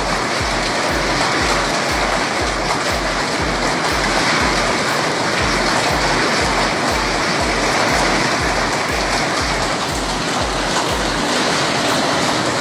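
A heavy storm downpour, a loud, dense, steady hiss of falling precipitation, with background music whose bass beat thumps about twice a second and stops near the end.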